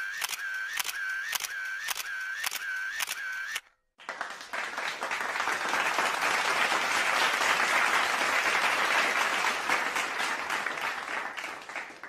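A camera shutter clicking again and again in a steady rhythm, stopping about three and a half seconds in. After a brief gap, a crowd applauding, building up and then fading out near the end.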